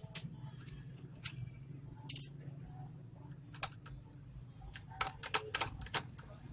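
Screwdriver tip clicking and tapping against the hard plastic of a laptop's battery bay: irregular sharp clicks, with one louder click about two seconds in and a quick run of them around five seconds in. A steady low hum runs underneath.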